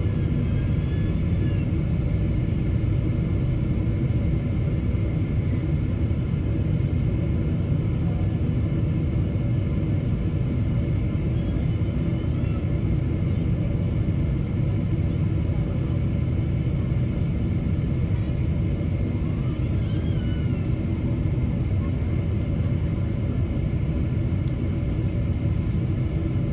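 Jet airliner cabin noise during descent: the steady low rumble of the engines and airflow, heard from a seat beside the window.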